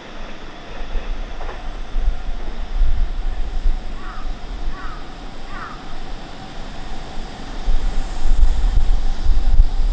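Wind rumbling on the microphone, growing stronger near the end. A crow caws three times in quick succession around the middle.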